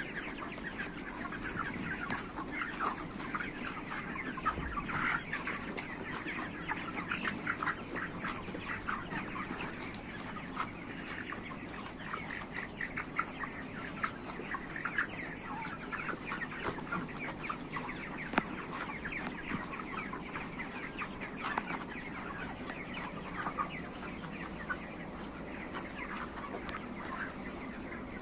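A large flock of five-week-old chickens in a poultry house, many birds clucking and chirping at once in a dense, continuous chorus, over a steady low hum, with one sharp click about two-thirds of the way through.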